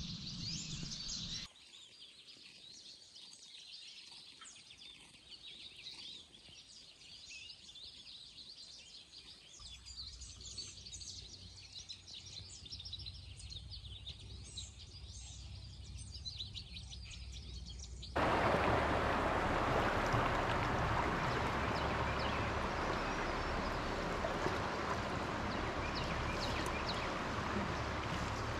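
Small birds chirping and calling over a quiet woodland background. About two-thirds of the way through, a steady, louder rushing noise abruptly takes over.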